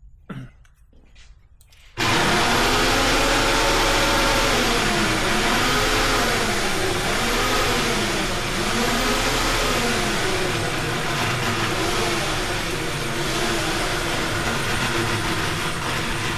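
Electric hoist motor starting abruptly about two seconds in and running under a heavy load, lifting an engine and transmission; its hum and whine sag and recover in pitch again and again as it labours.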